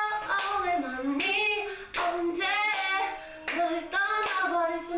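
Women singing a verse of a K-pop song unaccompanied, with a few hand claps.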